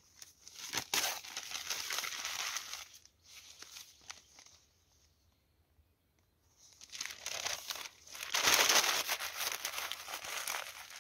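A sheet of newspaper being crumpled by hand into a ball. The rustling comes in two spells with a quiet pause of about two seconds between them, and the second spell, from about seven seconds in, is the louder.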